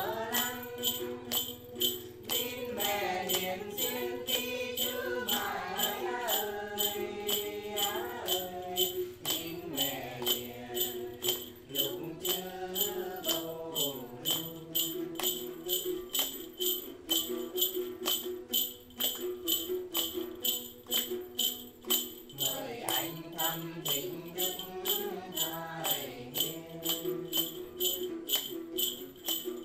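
Tày then singing with plucked đàn tính lutes and a jingling bell-rattle beat of about two shakes a second. The singers' voices come in phrases, with stretches of lute and rattle alone between them.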